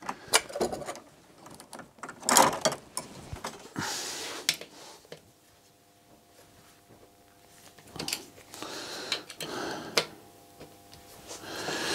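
Scattered metal clicks, knocks and scrapes of hand-tool work as a SRAM Eagle rear derailleur is unbolted from its hanger with a 5 mm Allen key, with a few brief rustles.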